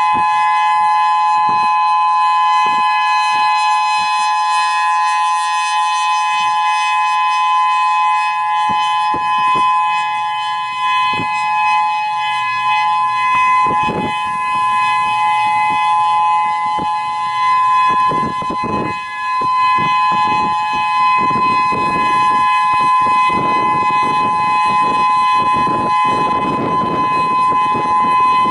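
Whelen 3016 rotating electronic siren sounding its steady dual-tone alert at 850 and 1020 Hz. Wind buffets the microphone, in short gusts at first and more heavily near the end.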